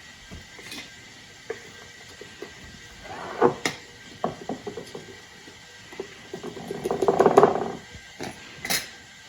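Hand-operated sifter working icing sugar through its mesh: short bursts of fast mechanical clicking, one about three seconds in and a longer, louder one around seven seconds in, with scattered single clicks between.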